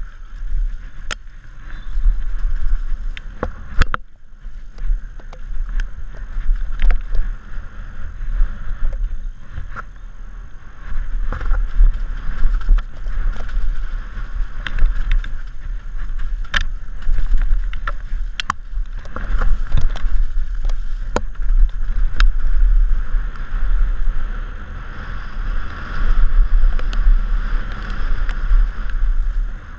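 Downhill mountain bike ridden fast down a wet dirt trail: wind buffets the helmet-mounted camera's microphone with a heavy, uneven rumble over the hiss of the tyres, and sharp knocks and rattles from the bike come through now and then as it hits bumps.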